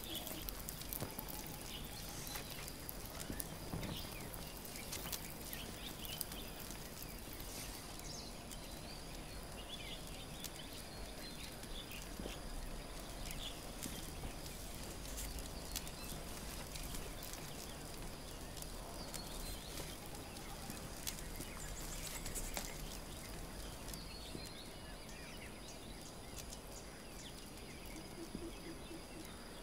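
Quiet outdoor ambience with scattered light crackles and rustles from paper offerings burning in a small fire and being handled, with a few faint chirps and a steady faint high whine.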